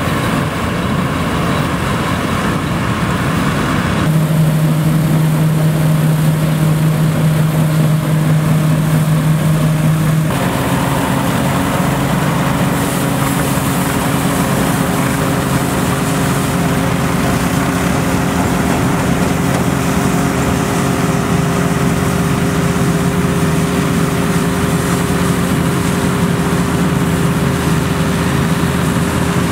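Tractor towing a Dronningborg trailed combine harvester while it threshes: engines and threshing machinery running steadily with a constant droning hum. The sound changes abruptly twice, about four and ten seconds in.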